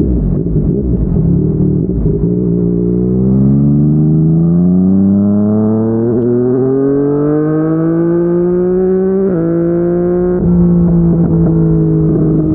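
Yamaha MT-09's inline-three engine through a Yoshimura R55 slip-on exhaust, pulling hard with its pitch rising steadily for several seconds under acceleration. Its pitch then drops in two quick steps about nine and ten seconds in as it shifts up.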